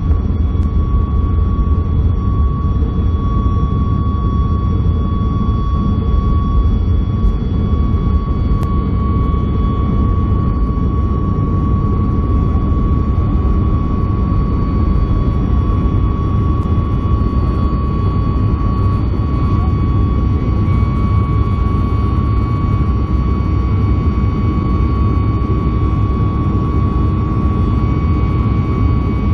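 Boeing 737-800's CFM56-7B jet engines heard from inside the passenger cabin: a loud, steady deep rush of engine and air noise with a steady high whine over it.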